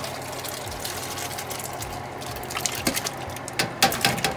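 Canned hominy being emptied from a large can into a stockpot of chicken broth: a steady watery hiss, then about two and a half seconds in a quick run of sharp knocks and splashes as the kernels drop into the broth and the can is worked against the pot.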